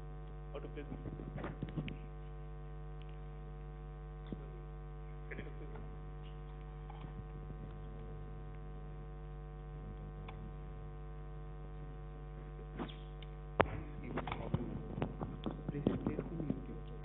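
Low steady electrical mains hum from the sound system, with scattered clicks and knocks; a sharp knock about three-quarters of the way in is followed by a run of clicks and rustling near the end.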